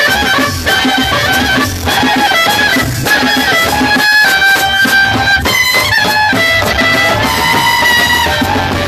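Live folk music: a caña de millo, a cane transverse clarinet, plays a high melody over a hand-played skin drum.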